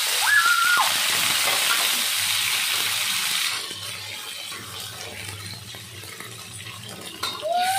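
Raw chicken pieces sizzling loudly as they hit hot oil in a wok and are stirred with a spatula. The sizzle dies down after about three and a half seconds to a quieter frying hiss. A brief high-pitched call is heard near the end.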